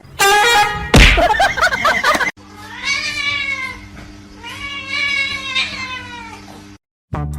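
A cat meowing loudly: a harsh yowl in the first couple of seconds, then two long drawn-out meows that rise and fall in pitch.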